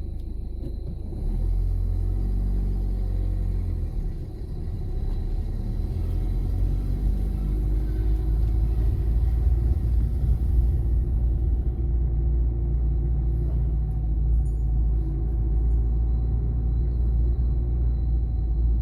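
Car on the move: a steady low rumble of engine and road noise that grows a little louder about a second in.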